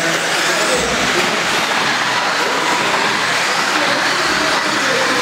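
A pack of electric modified-class 1/10-scale RC buggies running at racing speed on a dirt track, a steady dense mix of motor whine and tyre noise.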